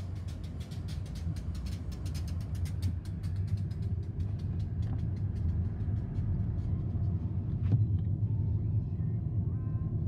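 Freight train rumbling past, low and steady. In the first half a rapid, even run of clicks that fades out by the middle. Later it is heard from inside a car, with one sharp click near the end.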